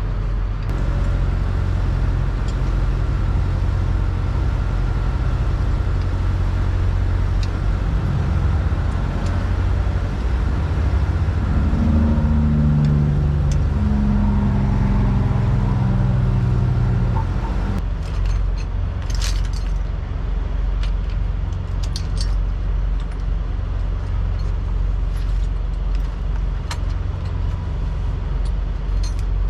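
Motor vehicle engine running with a steady low rumble. A pitched engine note rises and falls about halfway through. The sound changes suddenly after that, and light metallic clinks and jingles come in over the rumble.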